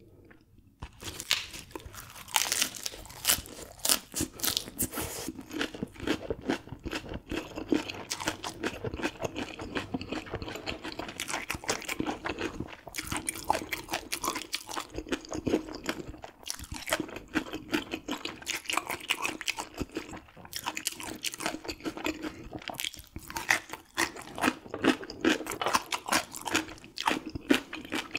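Close-up chewing of raw gizzard shad, bones and all: a dense, irregular crunching that starts about a second in and keeps going.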